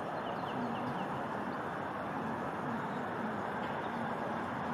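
Steady background rumble of distant city traffic, with a quick series of short, high, falling bird chirps in the first second or so and a couple more later on.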